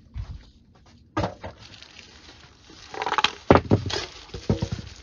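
Cardboard and plastic packaging being handled during unboxing. There are a few scattered knocks, then a busier run of rustling and knocks from about three seconds in, as items are pulled out and set down.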